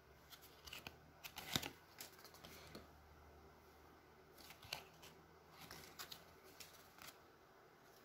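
Trading cards being slid off a stack and flipped by hand: faint scattered rustles and light clicks of card stock, the loudest about a second and a half in.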